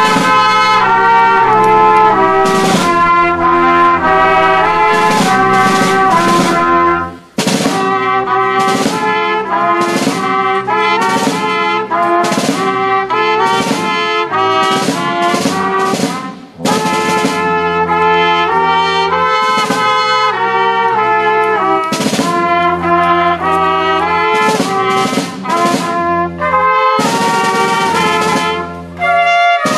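Brass band playing a slow piece, trumpets carrying the melody over tuba and lower brass, with short breaks between phrases about seven and sixteen seconds in.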